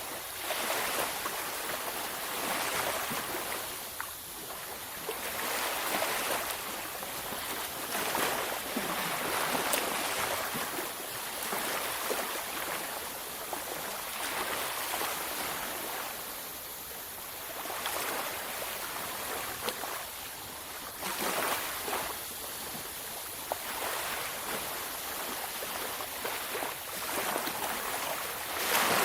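Sea waves breaking and washing up a beach: a continuous hiss of surf that swells and eases every few seconds.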